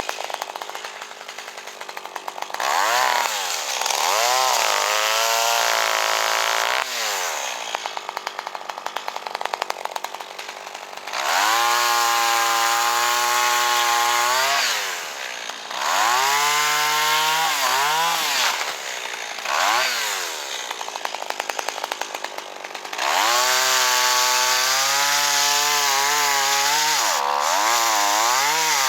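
A two-stroke chainsaw revving up and down, cutting up a fallen dead pine trunk. The engine is held at full throttle for several seconds at a time while it cuts, then drops back between cuts.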